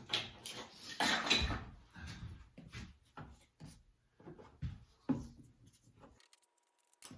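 Scattered knocks and clatter of objects being handled on a workbench, a quick run of sharp taps that thins out and stops about six seconds in.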